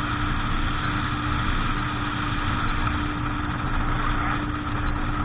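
A motorboat engine running steadily at a constant pitch, with a continuous noisy hum.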